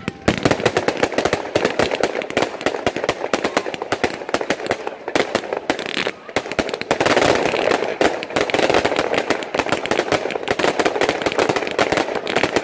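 Category 2 consumer compound firework (linked cake batteries) firing a rapid, almost continuous volley of shots as tails launch and stars burst and crackle overhead.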